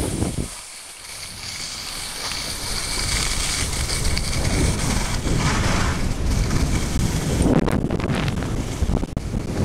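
Wind buffeting the microphone of a camera carried by a moving skier, mixed with skis hissing and scraping over snow; the rush dips briefly about half a second in, then builds and stays loud.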